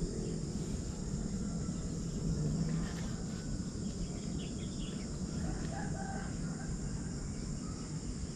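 Rural field ambience: a steady high drone of insects over a low rumble, with a few faint distant bird calls in the middle. No shot is fired.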